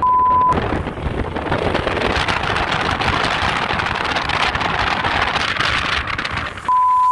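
Wind buffeting the microphone while filming from a moving vehicle: a loud, even rush of noise. A short steady beep sounds at the very start and again near the end.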